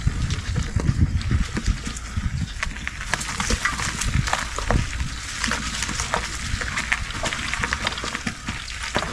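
E-bike riding down a dirt trail: wind rumbling on a head-mounted action camera's microphone, with the tyres and bike crackling and rattling over the ground in many short clicks.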